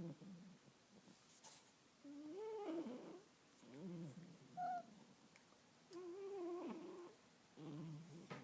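Faint snoring: a slow run of about five pitched snores, each half a second to a second long and wavering up and down in pitch, with a short higher squeak about halfway through.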